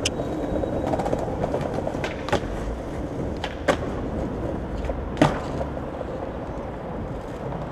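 Skateboard wheels rolling over stone plaza paving, with three sharp clacks of the board against the ground, the loudest about five seconds in.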